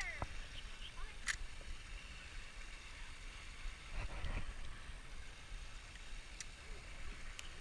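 A spinning rod and reel being handled: a few sharp clicks, and a brief rustle about four seconds in as the reel is worked. Under it runs a low, steady rumble of wind on the microphone.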